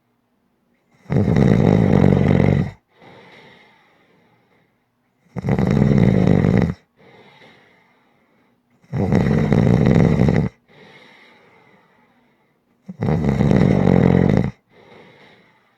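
Snoring: four loud snores, each about one and a half seconds long and roughly four seconds apart, each followed by a softer, shorter breath.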